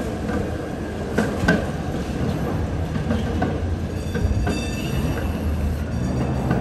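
PCC electric streetcar rolling along street track: a steady low rumble, two sharp knocks a little over a second in, and a brief high whine about four seconds in.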